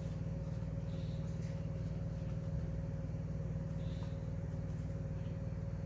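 A steady low mechanical hum with a thin, constant whine above it, unchanging throughout, like a running engine or motor.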